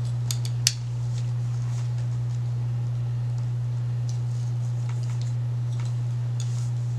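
Steady low hum, with a few light, sharp clicks in the first second and faint rustling of hair being handled with a curling iron.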